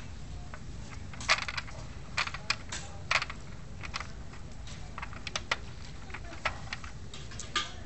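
Small metal Leksell frame fixation screws clicking against each other and their tray as a gloved hand picks through them: a string of irregular sharp clicks, the loudest about a second in.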